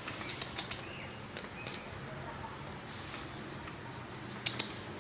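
Small dog playing with a chew bone on a tile floor: scattered light clicks and taps, several in the first second and a pair near the end.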